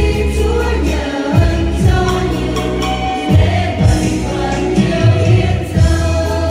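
Church choir singing a Vietnamese Catholic offertory hymn with instrumental accompaniment and a steady beat.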